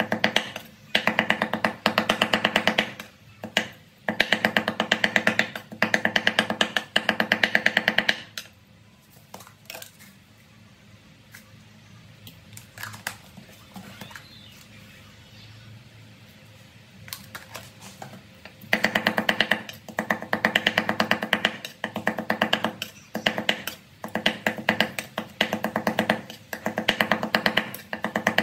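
Rapid, rhythmic chopping of a cleaver on a wooden cutting board, mincing raw fish into a paste, in runs of several seconds. About eight seconds in the chopping stops for roughly ten seconds, leaving only a few light taps, then it starts again.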